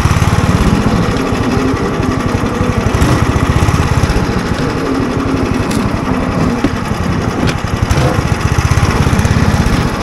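Engine of a Sharmax SE 500 motorized snow tow (motodog) running steadily as it hauls sleds through snow, with a rapid, even pulsing.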